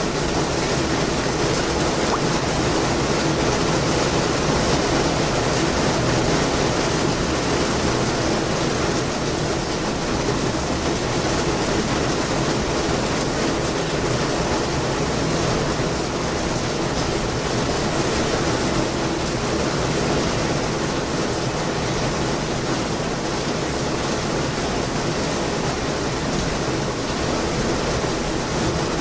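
Steady heavy rainfall, an even hiss of rain with no break.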